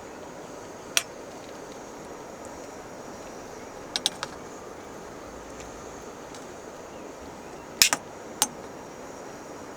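A few short, sharp clicks or clinks, such as small hard objects being handled: one about a second in, a quick cluster around four seconds, and a louder double click near eight seconds followed by one more. Under them runs a steady, even rushing noise.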